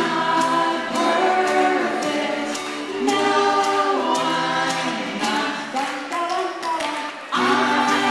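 Several voices singing together in chorus over a strummed acoustic guitar, played unplugged without any amplification. The music dips briefly about seven seconds in, then comes back in strongly.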